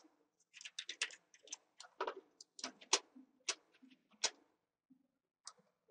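Computer mouse and keyboard clicking irregularly: a rapid run of short clicks through the first four seconds or so, then only a couple of isolated clicks near the end.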